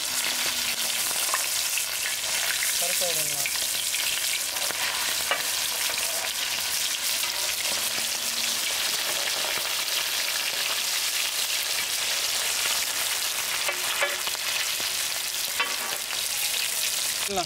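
Whole masala-coated red pomfret frying in shallow hot oil on a large tawa: a steady, bubbling sizzle. A steel ladle scrapes and taps the pan a few times as the fish are turned.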